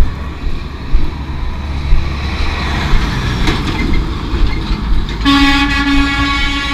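Wind buffeting and road rumble while riding a motorcycle. About five seconds in, a vehicle horn sounds one steady note for about two seconds.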